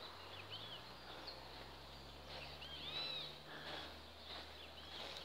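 Birds chirping in short arched calls, busiest about three seconds in, over a low steady hum.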